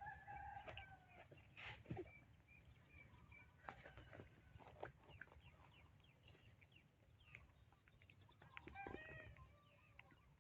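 Faint animal calls: short, high-pitched calls in clusters, some sliding in pitch, mixed with scattered clicks.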